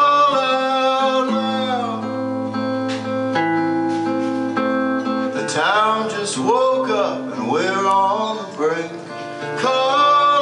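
Live acoustic guitar playing with a male voice singing over it, holding long notes that bend and slide in pitch through the middle stretch.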